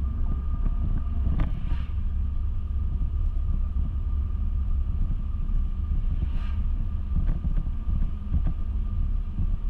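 Car driving at speed: a steady low rumble of road and engine noise inside the cabin.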